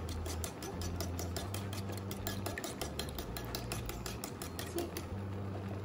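Raw egg being beaten briskly with chopsticks in a ceramic bowl: a fast, even run of chopstick clicks against the bowl, about six or seven a second, stopping about five seconds in. A steady low hum runs underneath.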